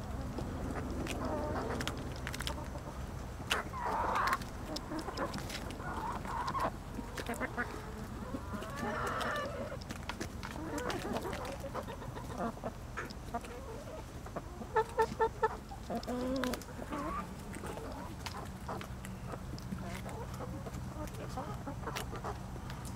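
Backyard hens clucking as they crowd round a cookie held out by hand, with scattered sharp clicks of beak pecks. A little past halfway one hen gives a quick run of about six loud clucks.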